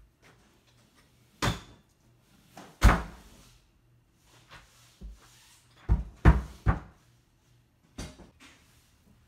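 A series of about seven sharp knocks and thuds in a bare room, spaced irregularly. The loudest comes about three seconds in and rings on briefly, and a quick run of three follows between six and seven seconds.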